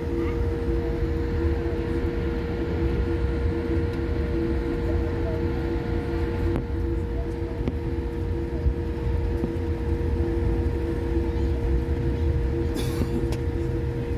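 Steady drone of an airliner cabin while taxiing: a low rumble with a constant engine hum, and a brief hiss about two seconds before the end.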